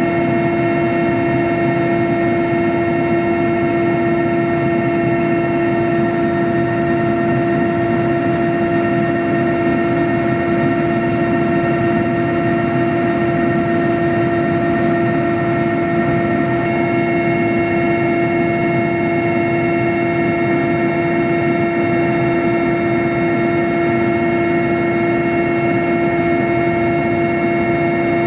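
Aircraft in flight running steadily: a constant loud hum with a fixed pitch and several steady whines over an even rushing noise, with no change in speed.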